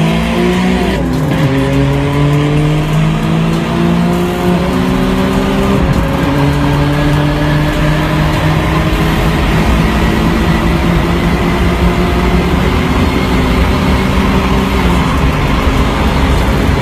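Car engine at full throttle during a highway race, heard from inside the cabin, with the other car running alongside. The engine pitch climbs slowly through long pulls and drops at gear changes.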